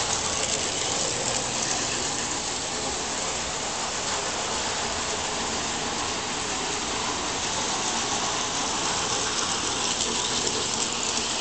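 Standard-gauge electric model train, a scratch-built McKeen motor car, running on three-rail tinplate track: a steady whir of the motor and wheels on the rails that holds an even level throughout.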